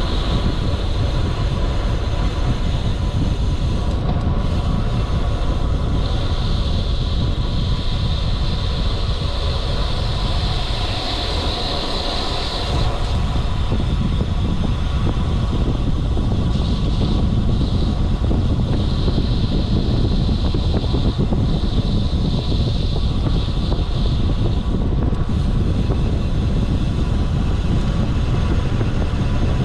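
Wind rushing over the microphone and tyre road noise from a road bike ridden at speed: a steady heavy rumble, with a higher hiss that swells and fades several times.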